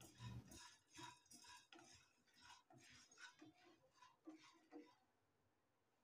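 Faint, irregular scrapes and ticks of a spatula stirring peanuts, chana dal and dried red chillies as they dry-roast in a nonstick kadai. The stirring stops a little before five seconds in.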